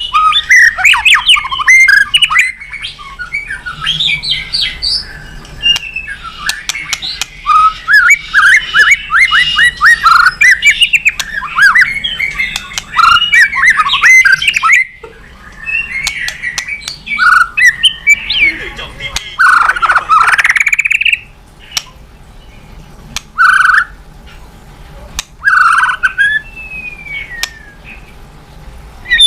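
White-rumped shama (murai batu) singing: a fast, dense run of chattering notes, clicks and sweeping whistles for about the first half, then after a short pause, separate harsher phrases and a long downward-sweeping call.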